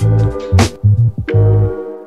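Background music: an electronic beat with heavy bass notes, sharp high percussion hits and held synth tones.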